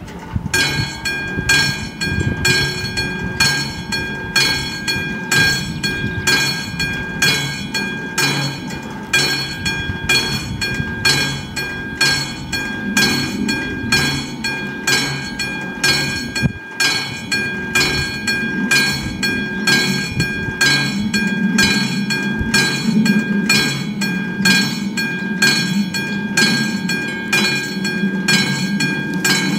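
Railway level-crossing warning bell ringing in a steady, even rhythm of about one and a half strikes a second; it starts just as the crossing's red lights begin to flash, warning that a train is approaching. A low rumble swells underneath in the second half.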